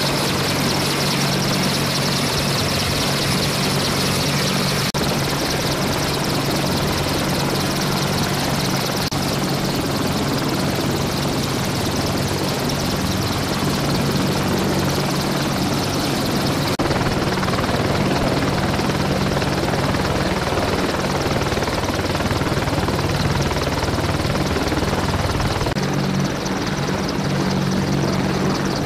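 AH-64 Apache attack helicopter, with twin turboshaft engines, running on the ground with rotors turning: a loud, steady turbine and rotor noise over a low hum. The sound shifts in balance a few times.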